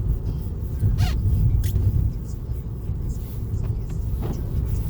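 Steady low rumble of a car being driven, heard from inside the cabin, with a brief faint squeak about a second in.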